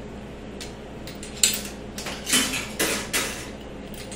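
Quarters being fed into a snack vending machine's coin slot and dropping through the coin mechanism: a sharp click about a second and a half in, then several metallic clinks and rattles over the next second or so.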